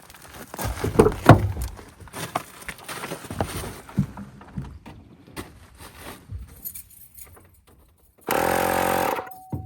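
Rattling and knocking as a portable tire inflator, its cord and its hose are handled, then near the end the inflator, plugged into the car, buzzes steadily for just under a second.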